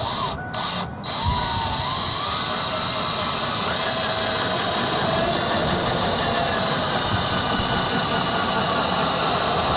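Power drill driving a self-tapping screw into the car door. It starts and stops in a couple of short bursts, then runs steadily from about a second in.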